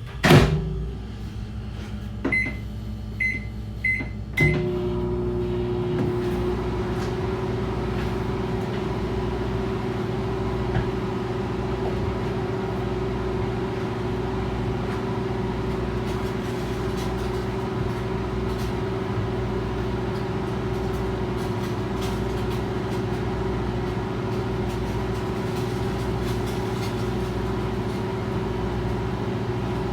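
Microwave oven: the door shuts with a thump, the keypad beeps four times, then the oven starts running with a steady hum.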